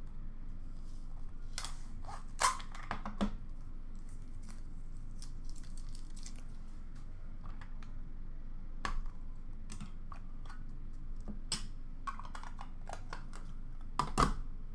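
Trading cards and rigid plastic card holders being handled: scattered clicks, taps and light shuffling, a few of the clicks with a short ring, over a steady low hum.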